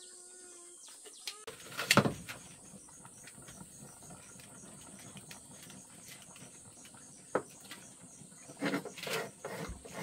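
Insects chirring steadily at a high pitch, with scattered knocks and clatters. The loudest is a sharp knock about two seconds in, and a few more come near the end.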